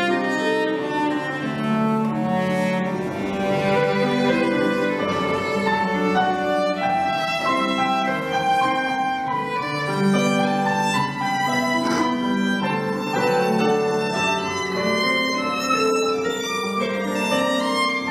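Instrumental string music: violin and cello playing sustained, overlapping melodic lines.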